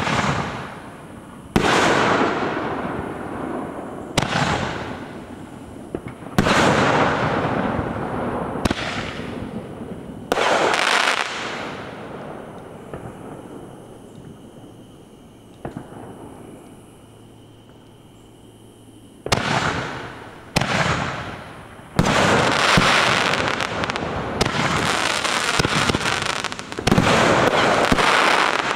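Consumer aerial fireworks going off overhead. A series of sudden loud bangs comes every couple of seconds at first, each fading into a crackling tail. After a quieter lull in the middle, a dense, continuous barrage of bursts and crackle fills the last third.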